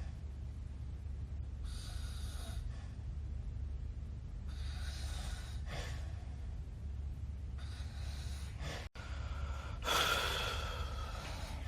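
A sleeping man snoring: about four rasping snores, each one to one and a half seconds long, every two to three seconds, the last one the loudest, over a steady low hum.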